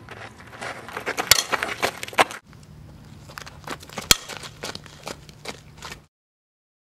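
Softball bat hitting pitched balls during batting practice: two sharp cracks, one about a second in and another about four seconds in, with scuffing and crackle of feet on the infield dirt between them. The sound cuts off suddenly about six seconds in.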